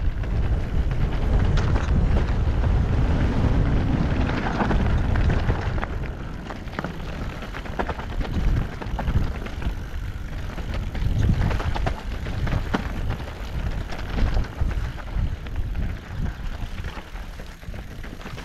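Mountain bike ridden down a rocky trail: wind buffeting the camera microphone, with tyres rolling over loose stones and the bike rattling in frequent sharp knocks and clicks. The wind rush is strongest in the first few seconds.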